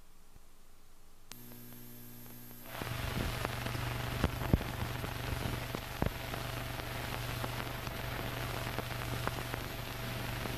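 Crackle and hiss of an old film soundtrack. A faint hiss at first, then a click and a steady hum about a second in, and from about three seconds in a louder crackle with scattered pops.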